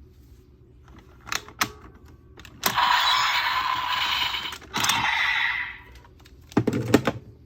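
Plastic clicks from a DX Kamen Rider Geats toy buckle and belt being worked by hand, with a loud hissing electronic sound effect from the toy's speaker in two stretches in the middle, followed by another quick run of clicks near the end.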